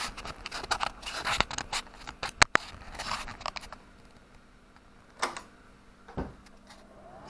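Clicks, knocks and rustles of a camera being handled and carried about, then two single knocks. Near the end a rising whine starts as a Cisco power supply is switched on and its fan spins up.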